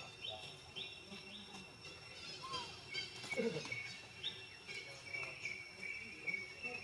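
Outdoor ambience: a steady high insect drone with repeated short bird chirps over it, and one brief lower sliding call about halfway through.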